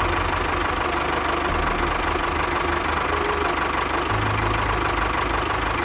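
Tractor engine running steadily with a low, knocking chug.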